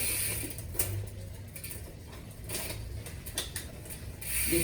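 Mountain bike rear hub freewheel ratchet ticking as the wheel turns slowly, a few scattered clicks from the pawls.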